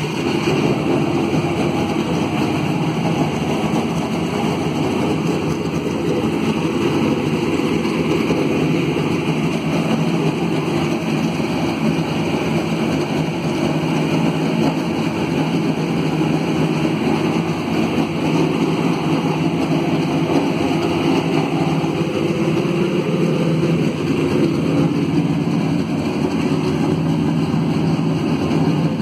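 FedEx #11 Toyota Camry NASCAR race car's V8 engine running steadily and loudly just after being started.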